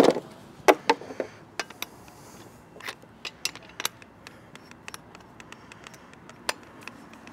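Scattered sharp clicks and knocks of hard objects being handled, over a dozen in all, the loudest in the first second and a single strong knock about six and a half seconds in.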